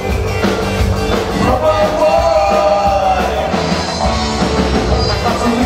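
Live rock band playing, with trombone and trumpet over drums and bass; a held melodic line stands out in the middle.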